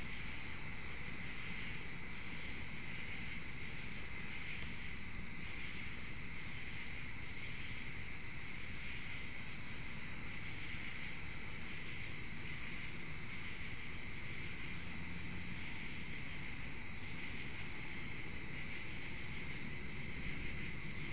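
Steady chorus of night insects such as crickets, a constant high trill with a faint pulsing above it, over a low steady hiss.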